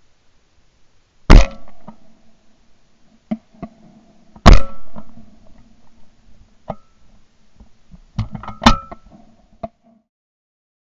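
Two shots from a 20-bore Beretta Silver Pigeon over-and-under shotgun, about three seconds apart, each very loud with a short ringing tail. These are followed by several sharp metallic clicks and clacks, with one fairly loud clack near the end.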